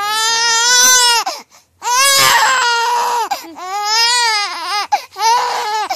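Baby crying in about four long, loud wails with short gasping breaks between them: a hungry cry while waiting for a bottle.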